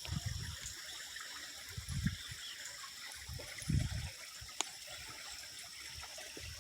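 Water trickling in a stream, a steady hiss, with a few low thuds, the loudest about two and four seconds in.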